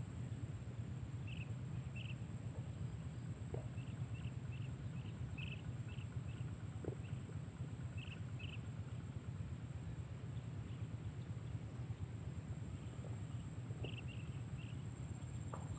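Outdoor marsh ambience: a steady low rumble under a continuous high-pitched insect drone, with short high chirps coming in scattered little runs.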